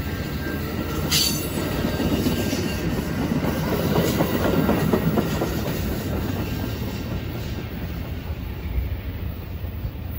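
Amtrak passenger cars rolling past at speed: a steady rumble and clatter of steel wheels on the rails, with a brief sharp high noise about a second in. The sound is loudest near the middle and fades as the last car pulls away.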